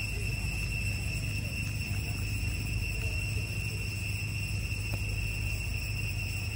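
Insects calling in a steady, unbroken high-pitched drone, over a low steady hum.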